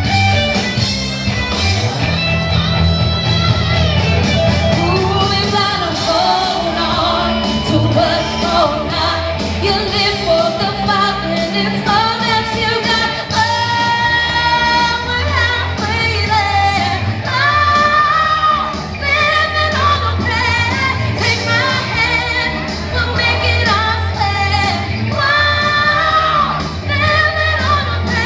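A woman singing into a microphone, her amplified voice holding long sustained notes over loud backing music with a steady bass line.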